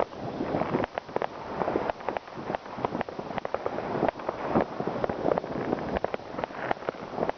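New Year's Eve fireworks going off all around: a constant rumble of overlapping bangs with many sharp cracks at irregular intervals.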